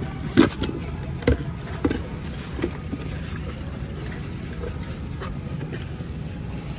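Hot Wheels cars in plastic blister cards clacking against each other as they are handled and flipped through in a case: a handful of short sharp clicks, the loudest about half a second in, over a steady low hum.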